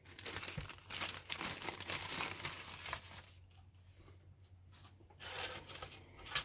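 Thin clear plastic bag crinkling as a plastic model-kit sprue is slid out of it, busy for about three seconds and then quieter. A short rustle follows a little after five seconds, and a single sharp tap near the end.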